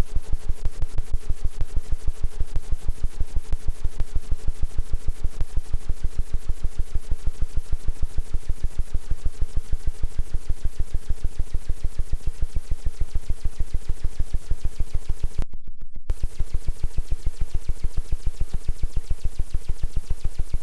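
Roland Octa-Capture audio interface putting out a rapid, evenly spaced train of low thumps, several a second, over a steady hum-like tone and hiss: the fault noise that appears when its phantom power is switched on. The hiss cuts out briefly about three-quarters of the way through while the thumping goes on.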